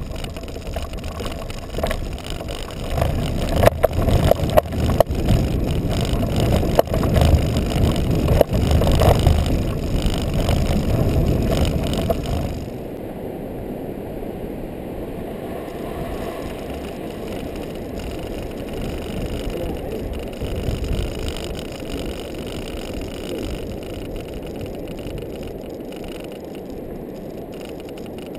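Libre Vmax kite buggy rolling fast over sand on its wide balloon wheels: wind rushing over the buggy-mounted camera's microphone, with low rumble and frequent knocks from the wheels and frame over bumps. About twelve seconds in the noise drops suddenly to a quieter, steadier rush.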